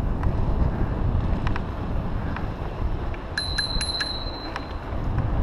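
Bicycle bell rung in a quick run of four dings about three and a half seconds in, over a steady rumble of wind on the microphone from riding.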